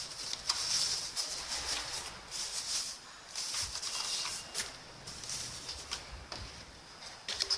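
Rustling and crinkling of packaging being handled, with scattered light clicks.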